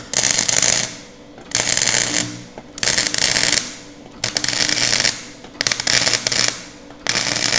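Gasless flux-core MIG arc from a Nagano MIG 130 welder laying tack welds on 18-gauge steel sheet: six short bursts of arc crackle, each under a second, about every second and a half, with a low hum under each. The crackle is clean and even, the sign of a welder well set for tacking at minimum heat 1 and wire speed 6.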